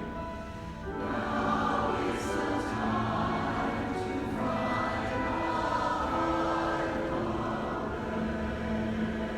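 Choir singing with musical accompaniment, sustained notes that swell about a second in.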